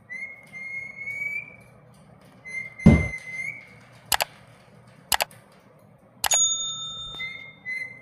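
Clear whistling: two long notes on one steady pitch, each about a second and a half, then short broken notes near the end. Between them come a heavy thunk, two sharp clicks, and a click followed by a bell-like ding, fitting the subscribe-button animation's sound effects.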